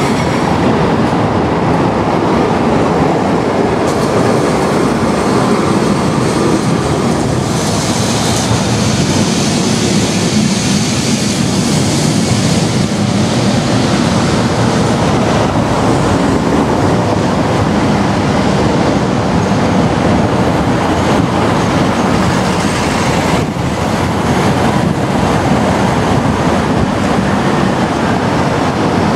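Lisbon electric street tram running on its street rails: a steady, loud rumble and rattle of wheels on track, with a stretch of brighter hiss around eight to eleven seconds in.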